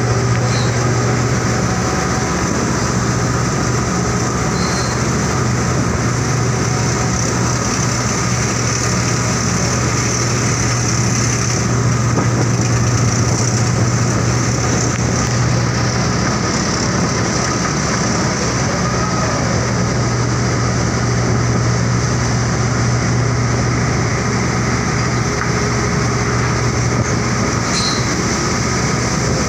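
Steady, loud drone of the floating crane's machinery running during grab-bucket coal loading, with a strong low hum.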